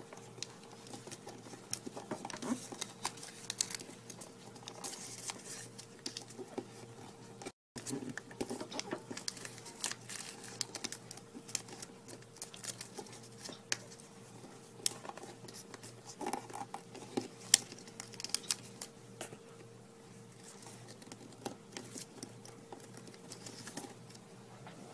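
Origami paper rustling and crinkling as hands fold and crease a lily model, with irregular light taps and scrapes of fingers pressing the folds flat.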